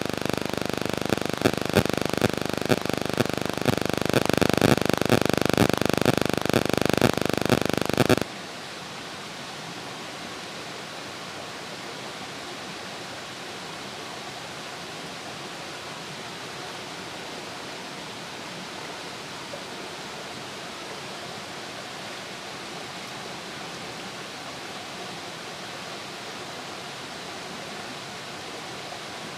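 A loud, rough noise full of sharp clicks for about the first eight seconds, cutting off abruptly. After it comes the steady, even rush of a small, clear forest stream.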